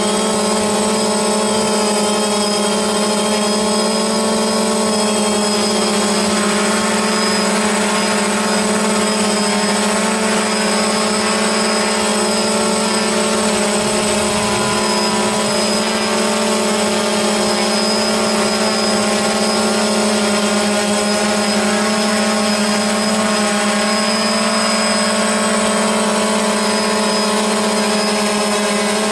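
DJI Phantom quadcopter's motors and propellers running steadily in flight: an even buzzing hum made of several fixed tones, unchanging throughout.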